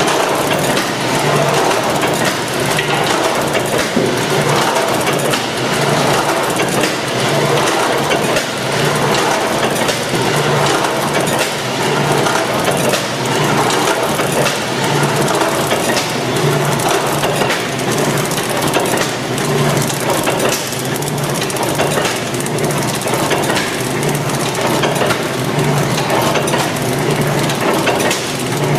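CCP HP-600F automatic horizontal pillow packing machine running: continuous mechanical clatter with a regular low pulse about once a second as it cycles.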